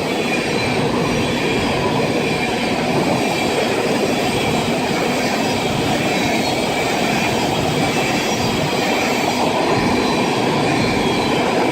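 Freight cars of a long freight train rolling past close by: a steady rumble of steel wheels on rail, with a faint steady high squeal from the wheels.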